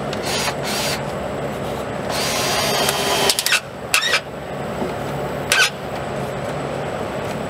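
Cordless drill driving screws into a sheet-metal gutter, in short runs, the longest just over a second, with a few sharp clicks around the middle.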